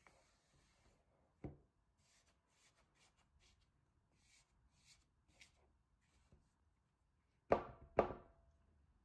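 Silicone spatula stirring flour into a sticky dough in a glass bowl, with soft scraping and a light knock, then two sharp knocks against the bowl about half a second apart near the end, the glass ringing briefly after each.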